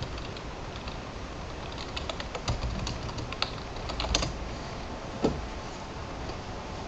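Typing on a computer keyboard: scattered, irregular key clicks, busiest from about two to four seconds in. About five seconds in, a single short creak falling in pitch from the office chair as she turns.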